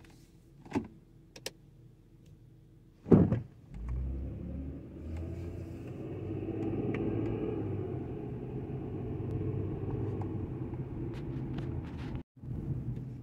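Car engine and road noise heard from inside the cabin as the car drives off and runs down a street. The noise builds and then holds steady after a single thump about three seconds in, and cuts out for a moment near the end.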